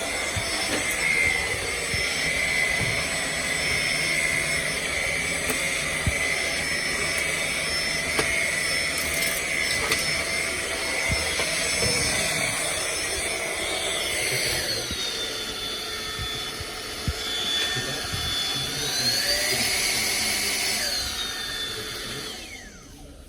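Tefal cordless vacuum cleaner running, a steady rushing noise with a high motor whine. In the last third the whine's pitch shifts up and down, and near the end the motor winds down and the noise drops away.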